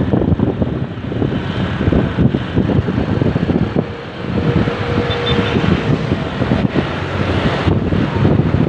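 Wind buffeting the microphone over road and engine noise while riding along in traffic, a steady gusty rumble that dips briefly about four seconds in.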